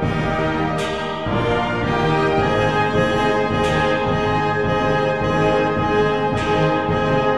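Orchestral background music with held brass chords, and a bright accent that fades out about every three seconds.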